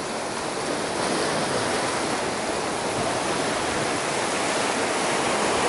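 Sea surf breaking and washing over rocks, a steady rushing hiss with no separate crashes standing out.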